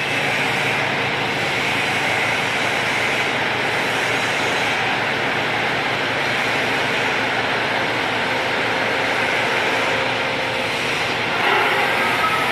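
Toshiba TMD-13 CNC vertical boring mill running with its table rotating: a steady mechanical noise from the table drive, a little louder near the end.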